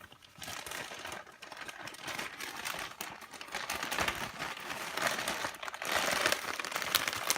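Plastic packaging crinkling and rustling as hands rummage in a grab bag of packaged squishy toys, a dense crackle that grows louder about halfway through.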